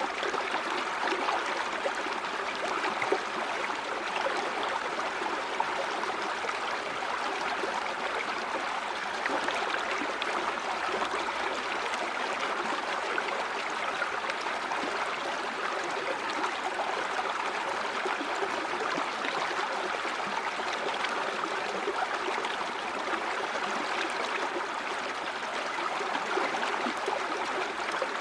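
River water flowing steadily, an even, continuous rush of running water.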